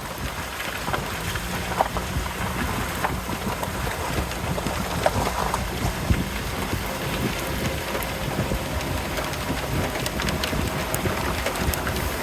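Rain falling steadily: an even hiss with many scattered sharp ticks of individual drops.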